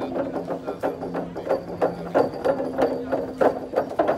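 Traditional Orang Ulu sape music: amplified sape lutes holding steady notes while a jatung utang, a wooden keyed xylophone, is struck in an even rhythm of about three strokes a second.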